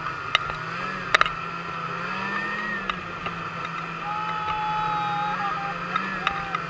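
Ski-Doo snowmobile engine running steadily under way, its pitch rising and falling slightly, with a few sharp knocks in the first second or so.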